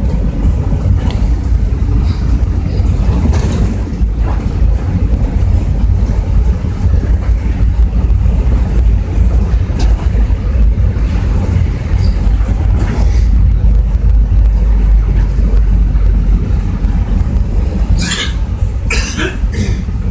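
Cabin noise of a Bogdan A09204 city bus under way: a loud, steady low rumble from its diesel engine and the road, with the body and fittings rattling. There is a burst of loud clattering near the end.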